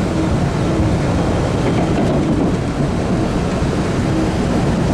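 Steady running noise inside a moving MBTA Orange Line CRRC subway car: the car's rumble and its wheels on the rails, with a faint intermittent tone.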